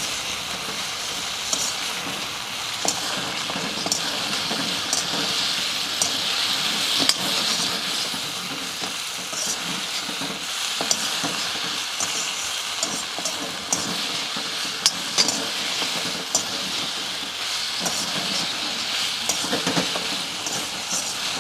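Fried chicken pieces sizzling as they are stirred through a sauce in a hot kadhai, with a steady frying hiss and frequent short clicks and scrapes of the stirring utensil against the pan.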